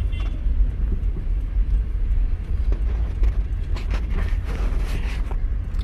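Steady low rumble of a car's engine and road noise heard from inside the cabin while driving slowly in traffic.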